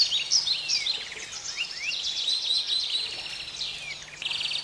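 Wild birds chirping and calling: many quick rising and falling whistled notes, several voices overlapping, with a buzzy trill near the end.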